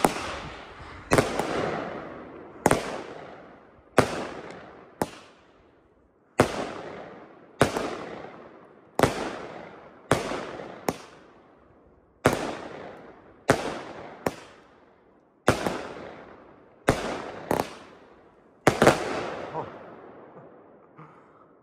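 Consumer firework cake firing shot after shot: about seventeen loud, sharp bangs, roughly one every second or so, each echoing away before the next. The shots stop a couple of seconds before the end.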